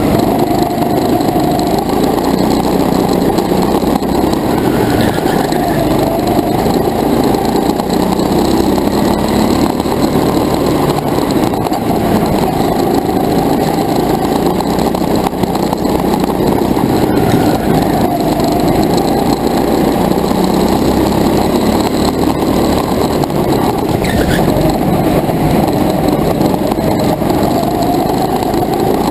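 Racing go-kart's motor recorded from on board, running hard without a break, its pitch rising and falling over and over as the kart speeds up and slows through the corners, over a constant rough rumble.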